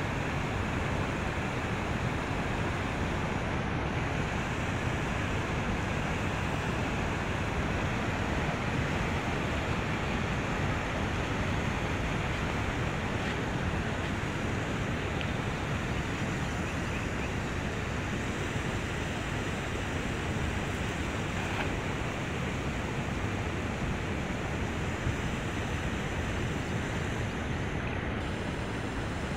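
Steady rushing of flood-swollen, muddy river water.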